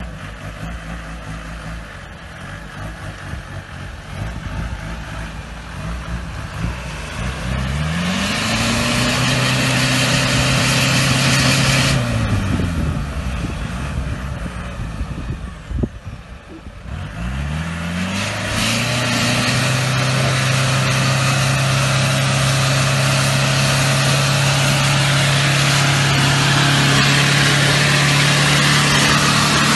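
A vehicle engine is revved up about eight seconds in and held at high revs for a few seconds, then drops back. About halfway through it is revved again and held steady at high revs. A loud rushing hiss runs over it each time it is under load.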